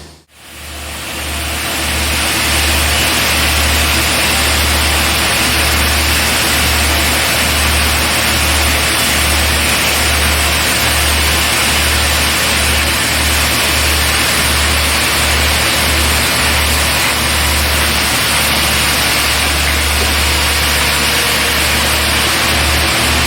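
Sawmill machinery running with a loud, steady mix of engine noise and saw hiss, with a pulsing low hum underneath. It cuts in after a brief dropout at the start.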